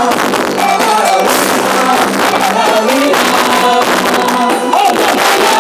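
Loud band music with singing.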